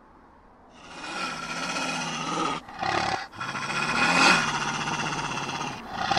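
A deep, menacing animal growl dubbed as the voice of an animated badger character. It comes in two long stretches with a short break about three seconds in.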